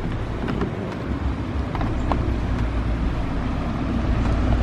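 Steady low rumble and hiss of wind on the microphone over river water around a bamboo raft being poled along, with a few faint clicks.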